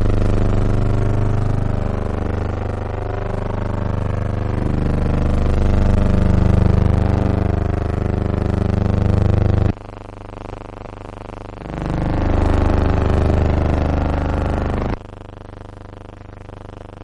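A loud, steady low buzzing drone with a dense hum. It drops abruptly in level about ten seconds in, swells back about two seconds later, and drops again near the end.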